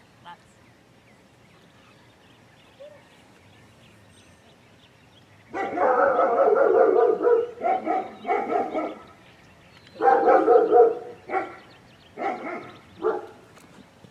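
Dog barking: after about five quiet seconds, one long drawn-out bark followed by a run of shorter barks, another cluster about ten seconds in, and a few short single barks near the end.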